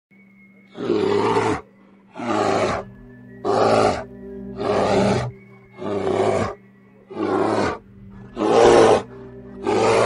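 Repeated loud animal roars, eight in all, each under a second long and coming at an even rhythm about every second and a quarter, over background music with steady held notes.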